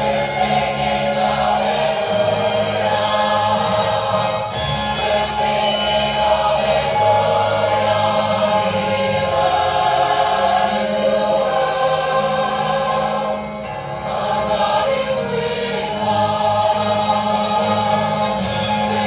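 Choral music: a choir singing a slow sacred piece over long held low notes, dipping briefly about two thirds of the way through.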